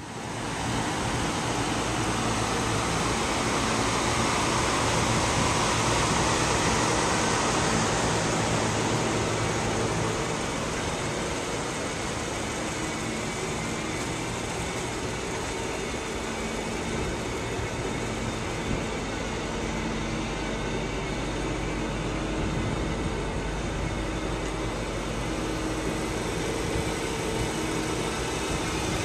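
Lexus GS 430's V8 engine idling steadily under an even hiss.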